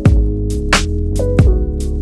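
Background music with a steady beat: a drum hit about every two-thirds of a second over held bass notes.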